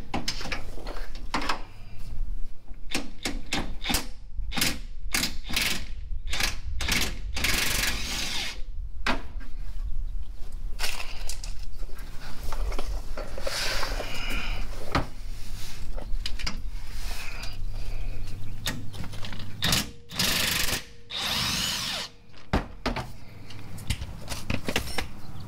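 Handheld power tool running in many short bursts with brief pauses, backing out bolts from the sway bar under the front of the vehicle, with clicks and knocks between bursts.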